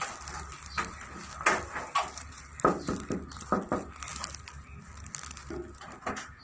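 Handling noise from a covered phone being carried: irregular knocks and rustling, loudest between about one and four seconds in.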